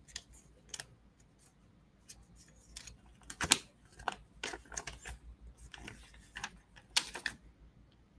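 Folded paper leaflet being handled and unfolded: scattered soft crinkles and clicks of paper, the loudest about three and a half and seven seconds in.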